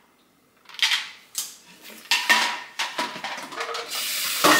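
Dishes and a plastic shaker cup clattering at a kitchen sink, a string of sharp knocks. About four seconds in, tap water starts running in a steady hiss, with one loud knock near the end.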